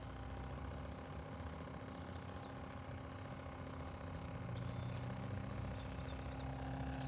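A cricket trilling steadily at a high pitch, with a low steady hum beneath it from a small battery air pump aerating a bucket of bait fish.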